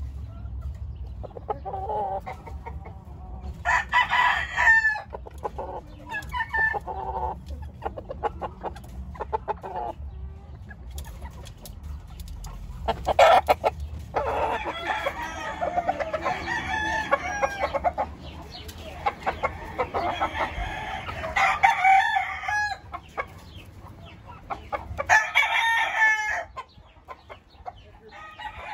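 Gamecock roosters crowing several times, calls from different birds overlapping in places, with clucking between the crows. A low rumble runs underneath and drops away near the end.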